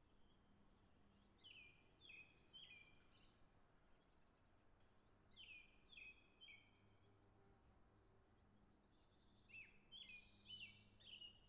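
Faint bird song outdoors: three short phrases, each of a few quick down-slurred whistled notes, about four seconds apart, over near-silent background.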